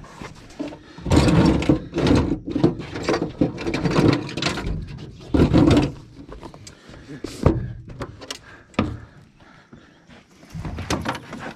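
Clattering, knocks and thuds from someone rummaging through a boat's storage compartments for pliers, with lids and gear banging.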